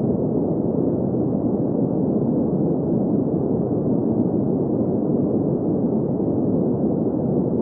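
Steady, muffled hiss of a generated green-noise sleep track, deep and even, with no highs and no change.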